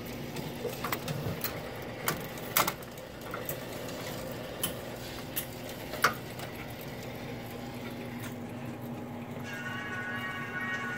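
1970 Wurlitzer Statesman jukebox record-changer mechanism cycling: a string of sharp clicks and clacks over a steady hum. About nine and a half seconds in, music starts playing from the record and grows louder.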